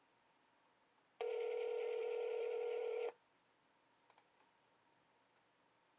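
Telephone ringback tone over the phone line: a single steady ring about two seconds long as the held call is put through to a representative. A faint click follows a second later.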